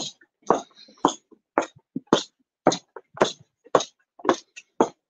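Footsteps walking on a bare concrete floor, a short scuffing step about twice a second at an even pace.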